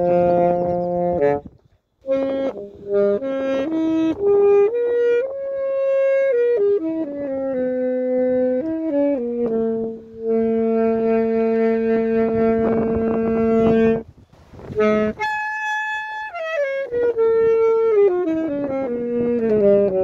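Unaccompanied saxophone playing a slow melody, with two short breath pauses. There is a long held note in the middle, then a high held note about three-quarters through that gives way to a descending phrase.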